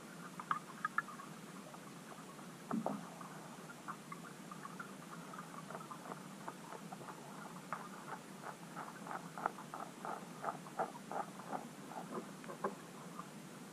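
Underwater clicking: irregular short soft ticks, a few near the start and then a quick, dense run in the second half, with one dull thump about three seconds in, over a steady hiss.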